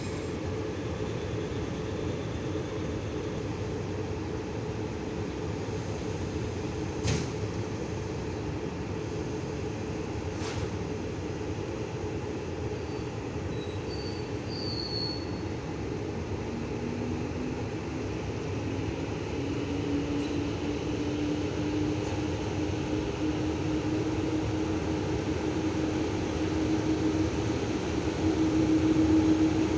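VL82M electric locomotive with its passenger train, running with a steady mechanical noise and one sharp click about seven seconds in. From about halfway a hum slowly rises in pitch and the sound grows louder as the train pulls away.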